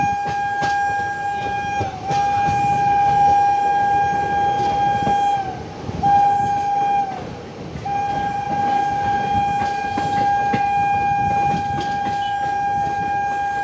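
Train locomotive horn sounding four blasts: about two seconds, then about three and a half seconds, then a short one of about a second, then a long one of about six seconds. Each blast is one steady tone that sags slightly in pitch as it cuts off. Underneath runs the rumble of a moving train with occasional clicks.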